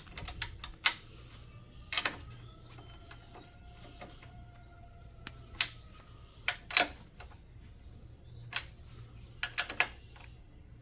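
Ratchet wrench clicking in short, irregular bursts of sharp clicks while tightening the bolt of a car battery's hold-down clamp.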